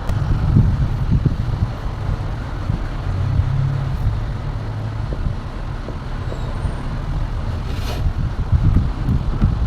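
Electric mixer grinder switched on and running, a loud low rumble with an irregular rattle. This is the abnormal noise it came in for, and it is still there with the suspect part removed, which points to a fault inside the motor base.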